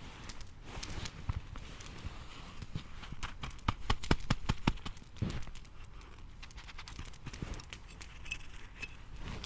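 Irregular crunching clicks with a few dull knocks, thickest in the middle stretch, the kind of sound made by moving about and handling things in hard frozen snow.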